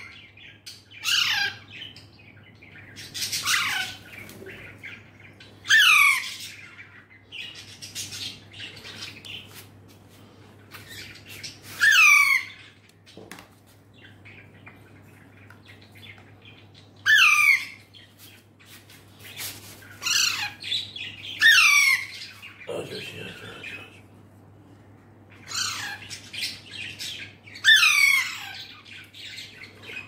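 Baby Alexandrine parakeets squawking: harsh food-begging calls, each a short call that sweeps down in pitch, repeated every few seconds.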